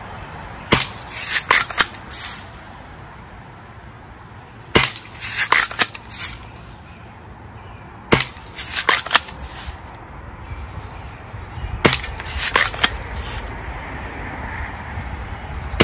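Daisy Red Ryder lever-action BB gun firing four times, roughly every three to four seconds. Each shot comes in a quick cluster of sharp clicks and clacks as the lever is worked to re-cock the spring.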